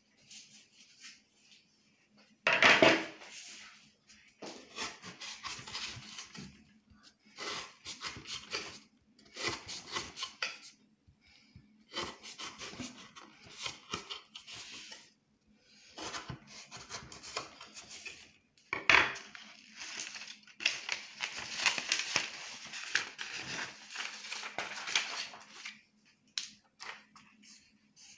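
Handmade knife blade cutting and scraping into a wooden board in repeated runs of strokes, each a second or a few seconds long, with wood splintering off. Two loud knocks break in, one about two and a half seconds in and one a little past the middle.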